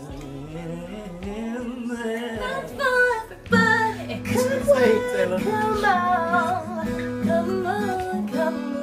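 A man singing softly. About three and a half seconds in it gives way to a woman singing a wavering line with runs over held guitar accompaniment chords.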